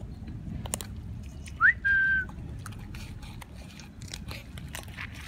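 Puppies eating boiled rice from a steel bowl: soft chewing and lapping clicks. About a second and a half in there is a loud, clear whistle, a quick rising note followed by a short held note.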